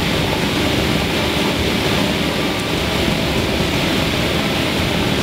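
Steady rushing noise of a lit gas Bunsen burner flame, even and unbroken.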